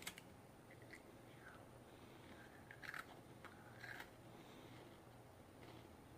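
Faint crunching of a shortbread cookie being bitten and chewed, with two small crunches about three and four seconds in, over near-silent room tone.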